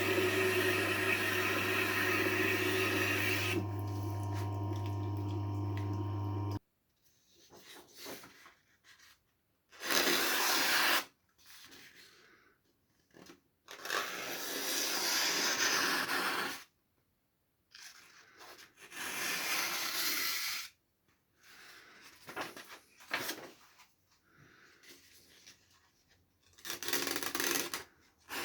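Tormek T-8 sharpener running with a steady hum, a steel knife rubbing on its wheel, then switched off and stopping about six seconds in. After that come a few separate scraping strokes, each a second or two long.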